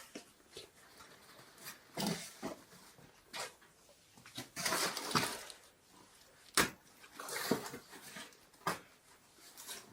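Rustling and scattered knocks and clicks as a parcel is handled and opened, with one sharp click about two-thirds of the way through.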